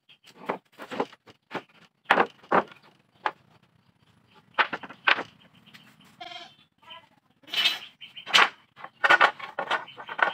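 Irregular sharp knocks and clatter of wooden boards being handled and set down, with a goat bleating briefly about six seconds in.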